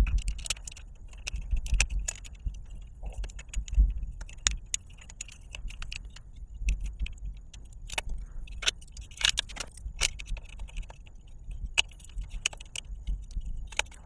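Small, irregular metal clicks and clinks as a bottle-cage bolt is fitted and turned into a rivnut on a bicycle frame, with a low handling rumble underneath.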